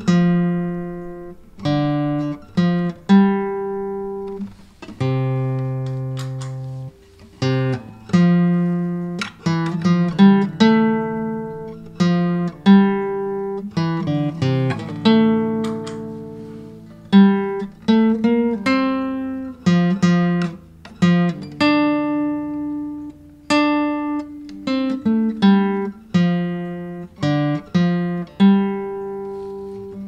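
Background music: a solo acoustic guitar picking a slow melody, single notes and chords each ringing out and fading.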